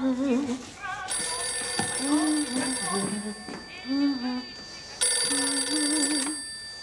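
Black rotary desk telephone's bell ringing in two bursts, a longer ring and then a shorter one that stops as a hand lifts the receiver. Over it a woman hums a tune.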